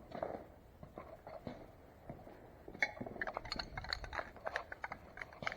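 Scattered light clinks and taps of small hard objects being handled and moved about, sparse at first and more frequent from about halfway through.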